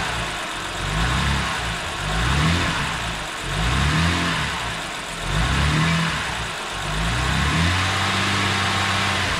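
Freshly rebuilt BMW N52B25 2.5-litre straight-six running, its engine note rising and falling over and over, then settling into a steady idle near the end.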